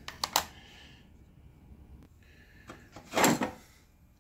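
Workbench handling noises: three quick sharp clicks right at the start as the calculator is set down, then a short, louder rustling scuff about three seconds in as the worn cast gear is picked up off the bench.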